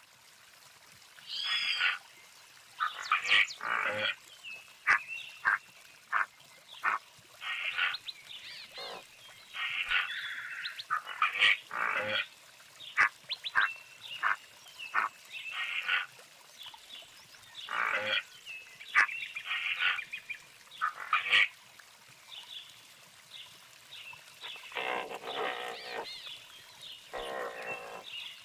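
A bird calling in a varied series of short, sharp calls, with two longer harsh, rasping stretches near the end.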